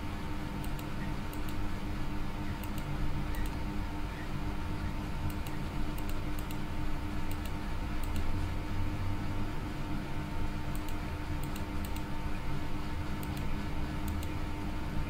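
Steady low electrical hum with scattered light clicks, often in pairs or small groups, from a computer mouse in use.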